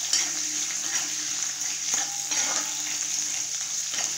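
Sliced onions, curry leaves and green chillies sizzling in hot oil in a kadai as they are sautéed and stirred, with short scrapes against the pan now and then.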